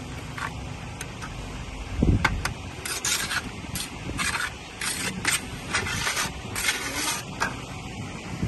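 Repeated scraping strokes, roughly two a second, following a single low thud about two seconds in.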